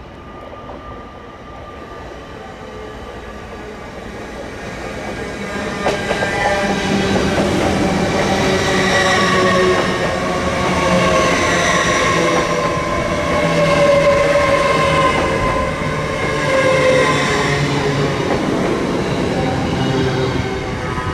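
A train moving through close by, its rumble growing louder over the first six seconds, with a cluster of high ringing tones from the wheels or traction gear that slowly fall in pitch.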